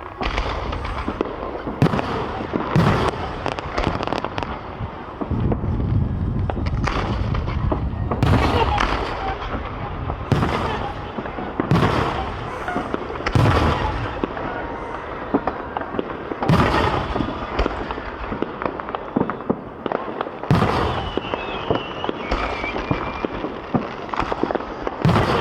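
Aerial fireworks shells bursting one after another, a sharp bang every second or two, each with a low boom and a short crackling tail.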